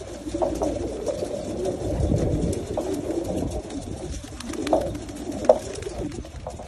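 A flock of racing homing pigeons cooing together in a continuous low murmur, with a few sharp clicks, the loudest about five and a half seconds in.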